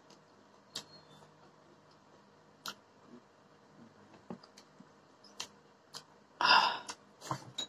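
Mukbang eating sounds: scattered soft clicks and smacks from mouths chewing rice eaten by hand. A short, louder rush of noise comes about six and a half seconds in.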